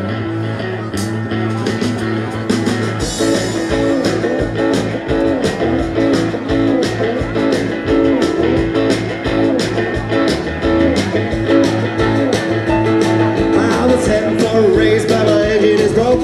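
A live rockabilly band playing a rock and roll number: guitars over a steady drum beat, with a wavering melody line coming in near the end.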